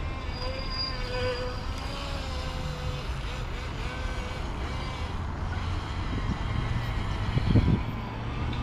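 Thin, wavering whine of the Alpharev R308 RC boat's electric motor running out on the water, over a steady low rumble. Near the end there is one short, louder bump.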